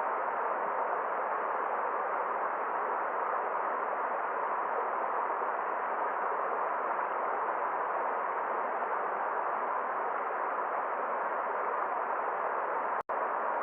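Forest stream flowing: a steady, even rush of water, broken by a split-second dropout near the end.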